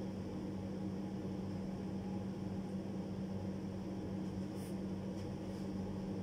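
Steady low electrical hum with a faint hiss, as from a motor or fan running, with one brief soft rustle about four and a half seconds in.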